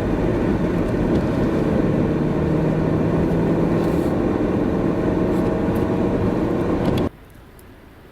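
Motor vehicle running, a steady engine hum with road and tyre noise, that cuts off abruptly about seven seconds in, leaving much quieter background noise.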